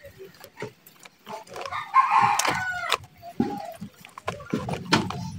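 A rooster crows once, starting about two seconds in and lasting about a second; it is the loudest sound. Around it come short, sharp clicks of metal scissors snipping the bonsai cutting's roots.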